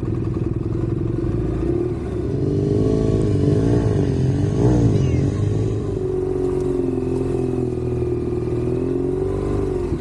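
Adventure motorcycle engine running on rough ground, its pitch rising and falling with the throttle several times between about two and five seconds in, then holding a steadier note.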